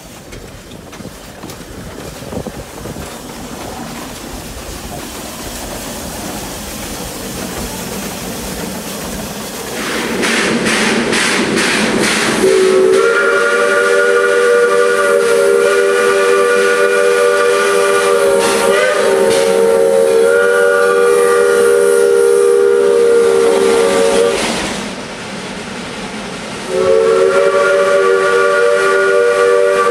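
Steam hiss building up and turning loud, then a steam locomotive's chime whistle, the Heisler's hooter, sounding a held chord of several notes. It blows for about twelve seconds, breaks off for about two seconds near the end, and sounds again.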